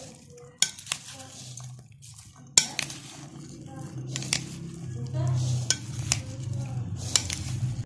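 A spoon stirring chopped fruit in a bowl, with several sharp clinks of the spoon against the bowl scattered through the stirring.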